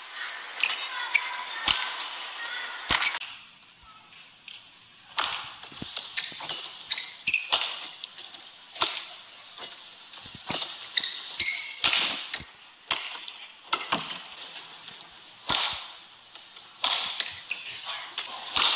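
Badminton rallies: sharp smacks of rackets striking the shuttlecock, roughly one a second, with shoes squeaking on the court.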